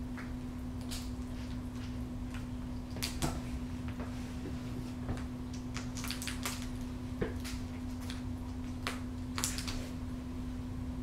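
Peregrine falcon tearing at quail meat with its beak: irregular small clicks, tears and crunches, a little cluster of them about halfway through, over a steady low hum.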